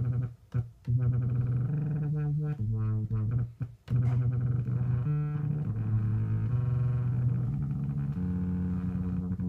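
Moog Werkstatt-01 analog synthesizer playing a low, buzzy monophonic bass line of held notes that step in pitch every half second to a second. The sound cuts out briefly twice, shortly after the start and about three and a half seconds in, and the tone shifts as its knobs are turned.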